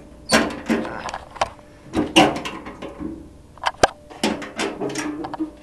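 Metal latch clicking and sheet-metal panels knocking and rattling as a 1980 Gilson garden tractor's hood is unlatched and opened, with one sharp click about four seconds in.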